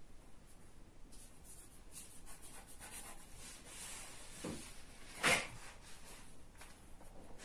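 Faint rustling and rubbing of paper cut-outs and craft materials being handled and stuck down on a tabletop, with a few light taps and one sharper tap about five seconds in.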